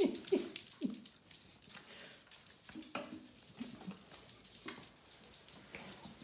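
Puppies giving short yaps in the first second and a few more later, over light clicks and pattering of paws on the floor.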